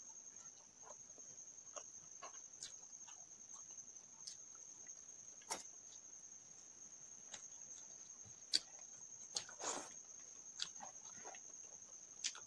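Faint hand-eating sounds: fingers mixing rice on a plate and scattered wet mouth clicks from chewing, with a few sharper ticks. A steady high-pitched tone runs underneath.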